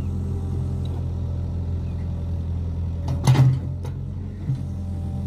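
Hydraulic excavator's diesel engine running steadily under load, with a loud clank from the bucket and arm about three seconds in and two lighter knocks after it.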